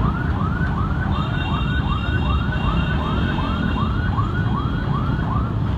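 Vehicle siren yelping in traffic: a rising wail repeated about two and a half times a second, over a steady rumble of street traffic. A steady high tone joins from about a second in until near the end.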